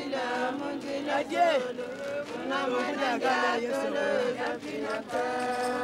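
A group of voices chanting a song together, holding long notes and sliding between pitches.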